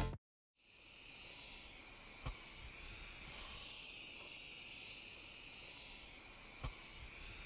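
Aerosol spray-paint can hissing in a long, steady spray, starting about half a second in. Two light clicks come through the spray, one a couple of seconds in and another near the end.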